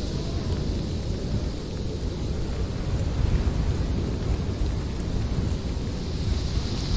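Blizzard wind blowing hard in a deep, steady rumble with a hiss over it. A faint whistling howl fades out about half a second in.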